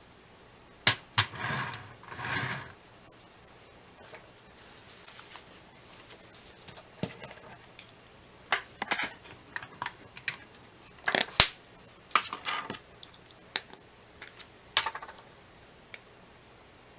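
Irregular clicks, taps and short rustles of small objects and materials being handled, with a sharp click about a second in and the loudest one near the middle.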